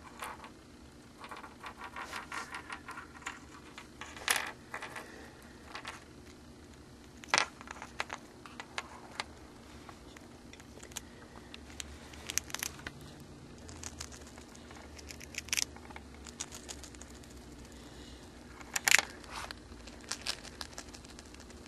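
Hamster gnawing and crunching a Cheez-It cheese cracker: irregular small crackly crunches and clicks, with louder snaps about 4, 7 and 19 seconds in.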